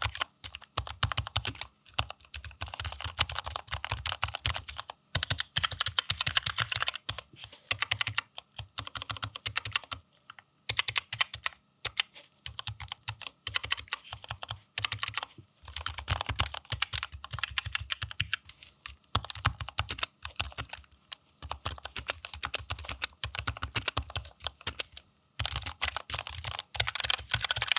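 Typing on a split mechanical keyboard fitted with a mix of switches (silent linears, browns and yellows), recorded close up: quick runs of key clacks with short pauses between the runs.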